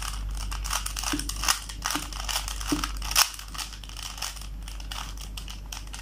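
A 3x3 Rubik's Cube being scrambled: its plastic layers turned quickly by hand in a rapid, irregular run of clicks and clacks. The clicks are thickest in the first three seconds and thin out after that.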